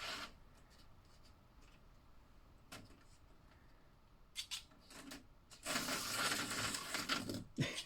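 Handling of plastic toy slot cars and track: a few scattered light clicks, then about two seconds of rattling, scraping noise near the end.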